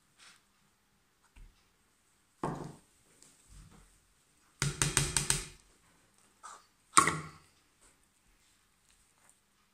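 Wooden spoon knocking and scraping against a glass mixing bowl while stiff butter is worked into a dry cocoa batter. There is a single stroke about two and a half seconds in, a quick run of knocks around five seconds, and one sharp, loudest knock near seven seconds.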